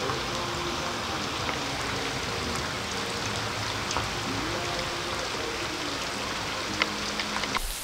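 Heavy rain pouring onto a swimming pool's water surface: a steady hiss with a few sharper ticks of drops.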